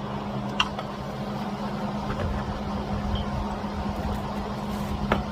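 Steady low mechanical hum, like a fan or motor running, with two light clicks: one about half a second in and one near the end.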